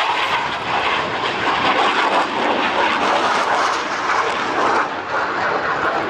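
A Blue Angels F/A-18 Super Hornet's twin GE F414 jet engines running loud and steady as the single jet flies past overhead.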